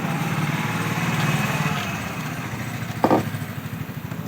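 A small engine running with a rapid, even pulse, growing louder and then fading a little. A short, sharp pitched sound cuts in about three seconds in.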